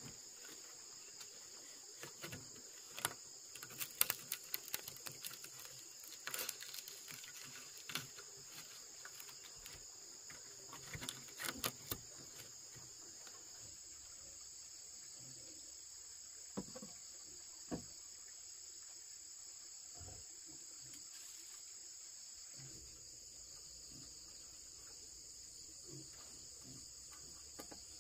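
Steady, high-pitched insect chorus with a constant shrill tone. Scattered sharp knocks and clicks fall over it, most often in the first twelve seconds and occasionally after.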